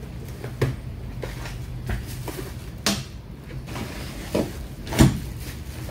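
Scattered clicks and knocks of hands handling an opened Lenovo G400S laptop and its parts, the loudest about five seconds in, over a steady low hum.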